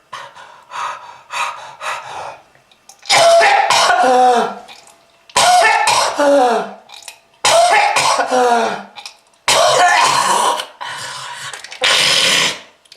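A person coughing hard, in the manner of a heavy smoker: a few shorter coughs, then five long, loud coughing fits in a row, each ending in a voiced, falling groan.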